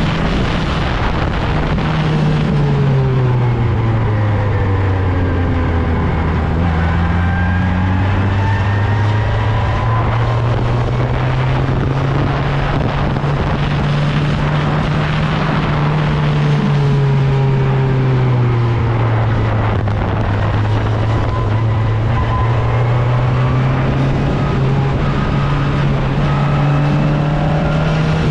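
Single-seat open-wheel race car's engine, heard onboard, running hard with no gaps. The note drops for several seconds early on, climbs back for several seconds, drops again past the middle and climbs toward the end, as the car brakes and accelerates through corners, over a steady rushing noise.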